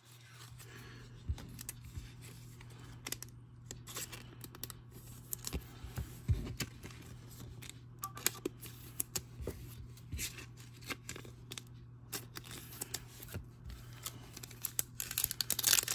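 Trading cards being handled and flipped one behind another, with many small sharp clicks and rustles of card stock against card stock. Near the end comes the crinkle of a foil card pack being picked up.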